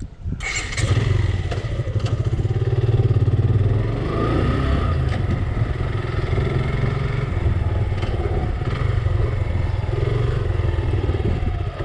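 Motorcycle engine running, starting about a second in after a brief gap, its pitch rising and falling a few times.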